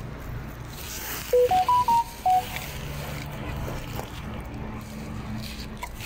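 A short electronic melody of about six pure beeping notes, stepping up in pitch and back down, a little over a second in, over a steady low hum.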